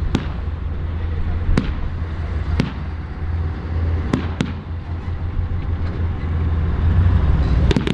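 Low, steady rumble of an armored vehicle's engine, swelling louder near the end. Sharp blank gunshots crack out singly every second or so, with several in quick succession near the end.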